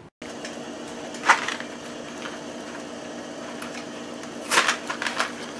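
Dry fettuccine rattling in its cardboard box as it is handled and tipped into a stainless steel pot: a brief rattle about a second in and a louder cluster of clatters near the end, over a steady low hum.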